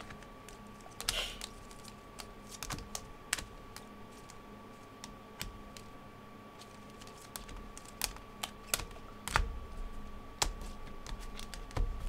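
Rigid plastic card top-loaders clicking and clacking against one another as a stack of trading cards is handled and sorted. The taps are irregular and sharp, and come more often in the last few seconds.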